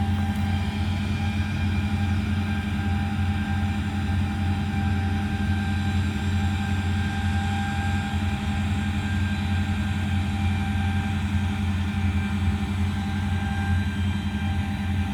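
Farm vehicle's diesel engine running steadily at constant speed, a deep even drone with a faint steady whine above it.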